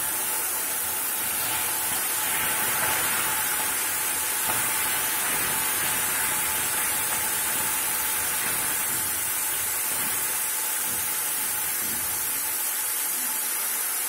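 Tamarind extract cooking in hot oil with tempering spices in an aluminium kadai: a steady sizzling hiss as the liquid cooks down to thicken.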